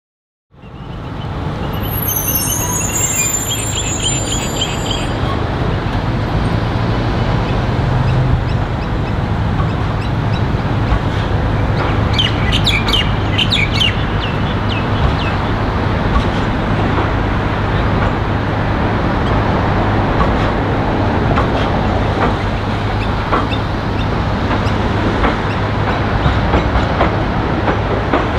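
A Melbourne electric tram rolling slowly along street track at close range, a steady noisy run with a constant low hum that starts about half a second in. Birds chirp briefly near the start.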